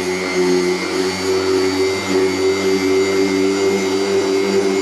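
Corded electric random-orbit sander running at a steady pitch, its pad scuffing the painted fuel tank of a Yamaha Virago XV535 with 600-grit paper to prepare it for respraying.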